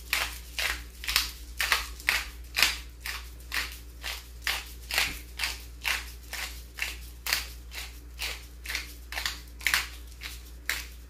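Handheld twist spice grinder being turned over and over, giving short gritty grinding crunches about twice a second.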